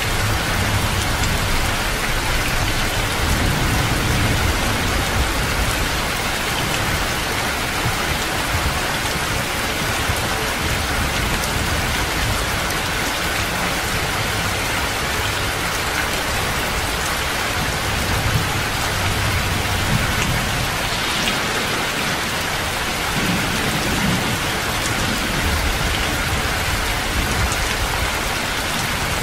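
Heavy rain pouring steadily in a dense, even hiss, with a few deep low rumbles now and then.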